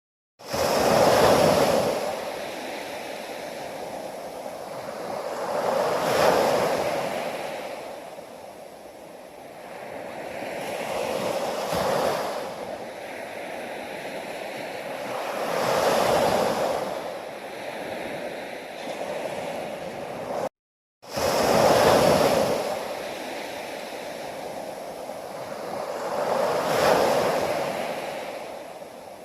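Ocean waves breaking on the shore, one swell roughly every five seconds, each building to a rush and then falling back to a softer wash. The sound cuts out completely for a split second twice: at the very start and about two-thirds of the way through.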